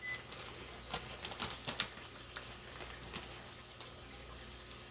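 Brown sugar being sprinkled and patted onto a rack of beef ribs, making scattered light ticks and rustles.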